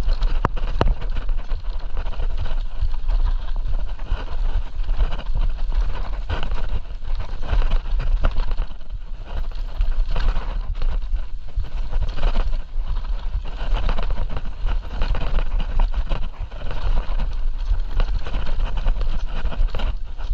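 E-mountain bike ridden fast down a dirt forest trail: wind rumbling on the action camera's microphone, tyres rolling over dirt, and frequent rattles and knocks from the bike over roots and bumps.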